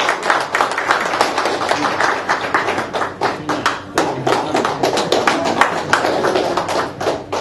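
Audience applauding: many hands clapping densely and unevenly.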